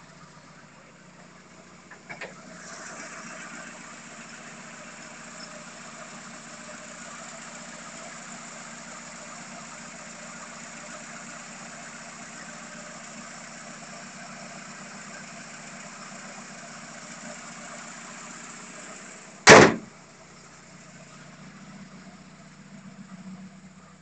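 1989 VW Fox's four-cylinder engine idling steadily. About two seconds in a click, and the engine sounds louder, with the bonnet open. Near the end a single loud slam of the bonnet shutting, after which the engine is quieter.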